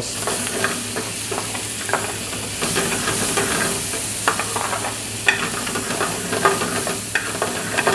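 Chicken slices and sauce sizzling in a hot metal frying pan while a metal ladle stirs them, with the ladle scraping and clicking against the pan several times. A steady low hum runs underneath.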